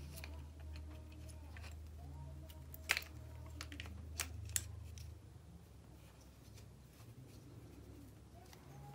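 Faint clicks and taps of small plastic and metal parts as wheelsets are fitted into a model locomotive's motor block, with one sharper click about three seconds in and two more soon after, over a low steady hum that stops about five seconds in.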